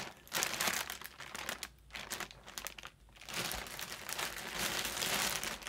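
Clear plastic bag crinkling as a hand rummages among the yarn skeins inside it, in several bursts with a brief lull, then a longer continuous stretch of crinkling from about the middle on.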